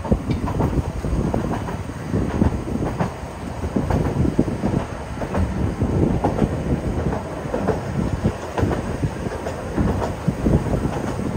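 Railway carriage running along the track, heard from its open side: a continuous low rumble with irregular clatter and knocks from the wheels and coupled carriages.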